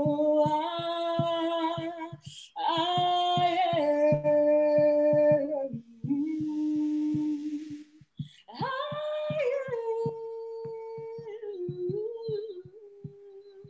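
A woman singing unaccompanied in slow, long-held notes, with audible breaths between phrases; the melody drops lower and quieter near the end.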